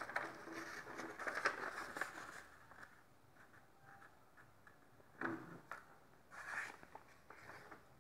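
A sheet of paper rustling and scraping against a tabletop as it is folded in half and creased by hand. Faint, with a couple of louder swishes past the middle.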